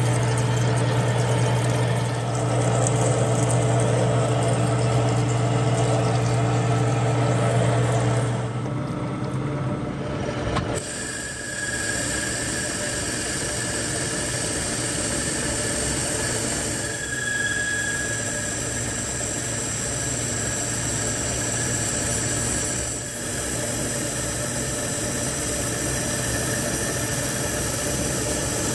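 Metal lathe running while a boring bar cuts the through bore in a cast Zamak (ZA-12) hand wheel. For the first eight seconds or so there is a steady low hum. About eleven seconds in the sound changes abruptly to a lighter run with a thin, high, steady whine from the cut.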